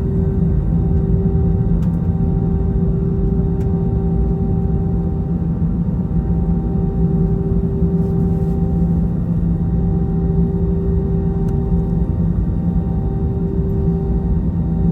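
Airbus A321 jet engines heard from inside the passenger cabin: a loud, steady rumble with a constant hum of several engine tones over it.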